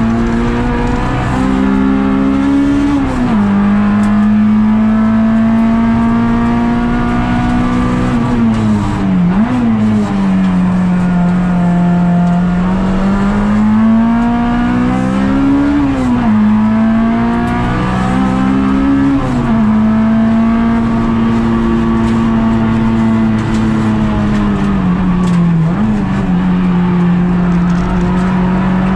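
Honda Integra Type R DC2's 1.9-litre TODA four-cylinder engine at high revs during a circuit lap, heard from inside the cabin. Its pitch climbs and falls with the throttle, with a few sudden sharp dips.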